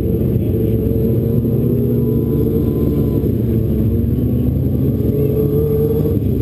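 Several winged outlaw karts running laps on a dirt oval, their engines overlapping in a steady drone with the pitches drifting a little as they go through the turn.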